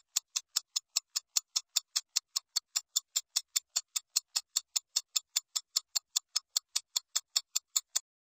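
Steady mechanical ticking, about four sharp ticks a second, that stops abruptly near the end.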